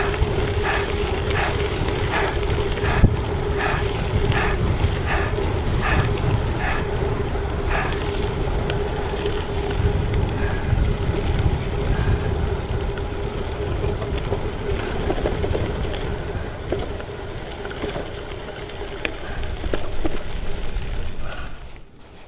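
Wind buffeting an action camera's microphone while riding a bicycle, with rumble from the bike. A steady hum runs through most of it, and for the first several seconds a regular tick sounds about twice a second.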